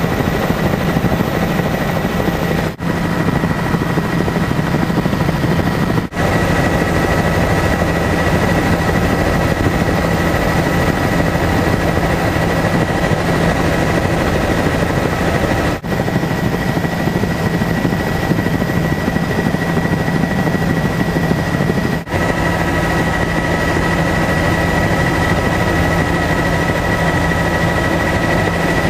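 Helicopter in flight, heard from inside the cabin: a loud, steady drone with a constant high whine over it, broken by a few momentary dropouts.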